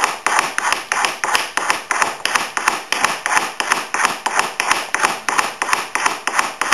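Soldering gun tip being cleaned with a rapid, even run of sharp taps, about four a second.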